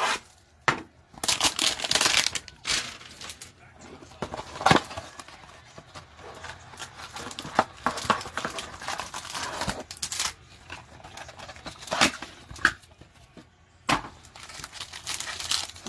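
Hands opening a cardboard trading-card hanger box and pulling out its plastic-wrapped stack of cards: irregular tearing, crinkling and rustling of cardboard and plastic, with a few sharp taps.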